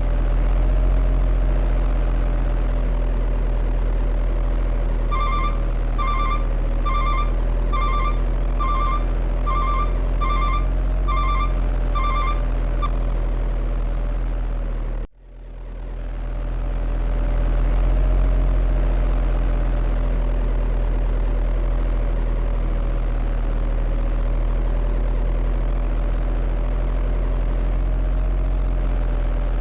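Steady low engine drone of RC heavy-equipment machines, with a run of about ten short double beeps in the middle, like a reversing alarm. Halfway through the sound cuts out for an instant and fades back in.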